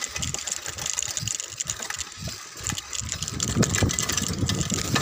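Wind rumbling on the microphone and the rattle of a mountain bike riding fast over rough, grassy ground.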